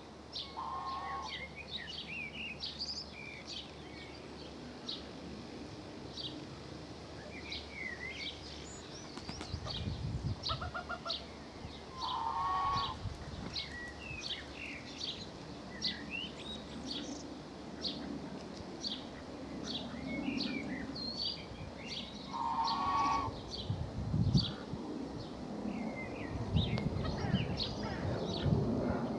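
Small birds chirping continually, with a louder, longer call three times: about a second in, about 12 seconds in and about 23 seconds in. A low rumble swells in the last few seconds.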